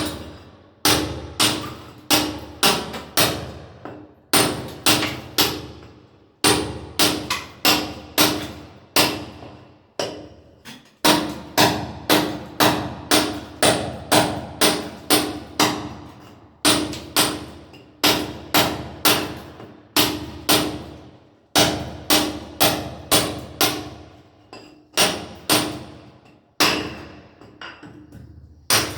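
Hand hammer blows on a steel chisel, breaking masonry. The blows come at about two a second in runs of four to seven with short pauses between, and each strike rings with a metallic tone.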